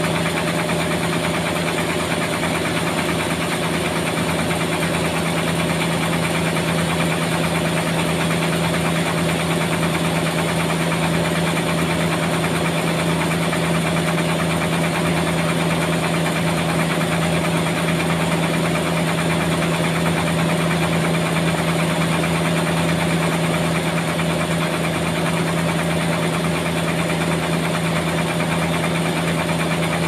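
Sawmill machinery running steadily: a constant, unchanging machine drone with one strong low hum.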